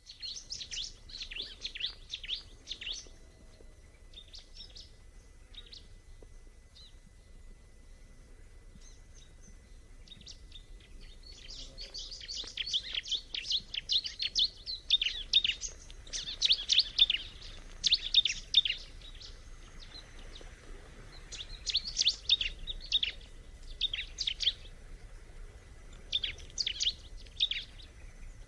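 Ciblek, a small prinia, singing in fast, high chattering bouts separated by short pauses; the song is thin and scattered for the first ten seconds or so, then comes in a dense, louder run in the middle.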